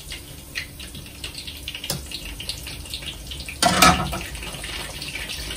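Corn-tortilla flautas frying in hot oil in a skillet, crackling and sizzling with many small pops. About three and a half seconds in there is a loud metallic clatter as metal tongs are laid on the pan, and the sizzle is louder after it.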